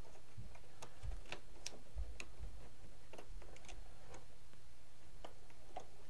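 Small metal tool clicking and scraping against an iMac's RAM module and slot as the memory module is worked loose: scattered faint, irregular clicks over a steady low hum.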